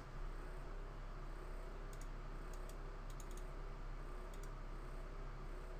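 Light, sharp clicks from operating a computer's input devices, several in close pairs, bunched between about two and four and a half seconds in, over a steady low hum of room noise.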